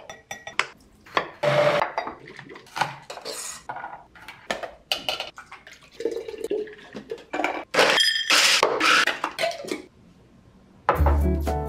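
Glass jars and metal kitchen utensils handled on a counter: a string of short clinks, taps and scrapes, one of them a brief ringing clink of glass. Music starts near the end.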